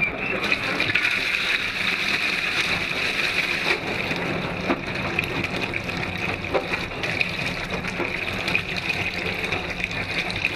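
Armitage Shanks toilet flushing: a steady, very powerful rush of water gushing into the bowl.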